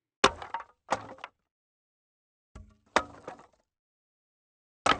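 Wooden offcuts being dropped, each landing with a sharp wooden knock followed by a brief clattering bounce. Four drops: two close together near the start, one in the middle, and another just at the end.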